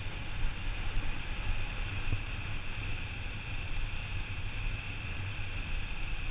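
Wind buffeting the microphone of a camera on a road bike descending at speed: a steady rushing noise with a rough low rumble.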